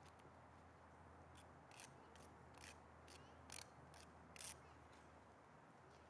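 Near silence: faint outdoor room tone with a low hum, and a run of faint, short, crisp ticks about two a second through the middle.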